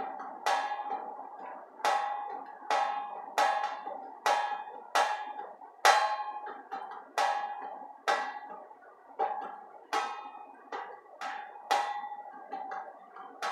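Repeated sharp, bell-like knocks, each ringing briefly at the same pitch, coming unevenly about one to two times a second.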